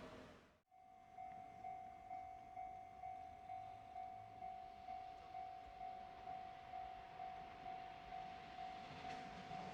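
Japanese railway level-crossing warning bell ringing its electronic 'kan-kan' at an even pace of about two strokes a second. It starts abruptly about half a second in.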